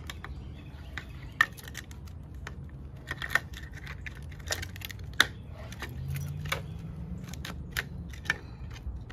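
Two-piece porch post skirting being fitted and snapped together around the base of a post: a scattered series of sharp clicks and taps as the trim pieces are pushed into place.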